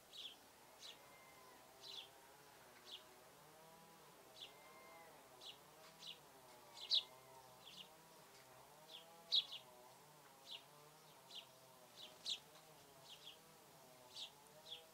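Short, sharp bird call notes repeated irregularly about once a second, two of them louder at about 7 and 9.5 seconds in. A faint wavering drone runs underneath.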